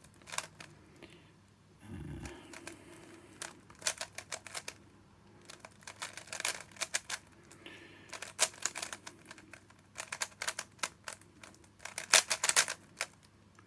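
Rubik's cube being turned rapidly by hand, its plastic layers clicking and clacking in quick bursts of about a second with short pauses between them.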